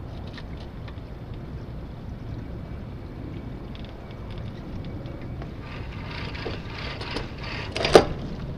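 Steady wind and water noise aboard a small junk-rigged sailboat under way, with the sail rustling as it swings and fills in the second half, and one sharp knock from the rig near the end.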